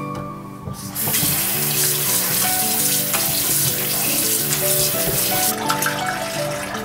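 Kitchen faucet running into a plastic bowl of cut bamboo shoot strips as hands swish them in the water, the stream starting about a second in. Near the end the tap stops and the rinse water is poured off into a stainless-steel sink with uneven splashing. Soft background music plays throughout.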